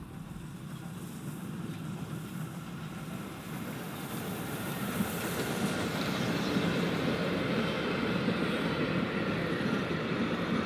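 Prussian branch-line steam train, led by locomotive 7348 "Kattowitz", approaching and passing close by, growing steadily louder as the engine goes past; then its vintage coaches rolling by with wheels clattering on the rails.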